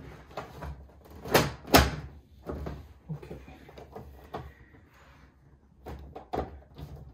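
Plastic front cover of a Daikin wall-mounted air conditioner's indoor unit being pressed back into place: two loud sharp snaps close together about a second and a half in, then several lighter clicks and knocks as it is pushed home.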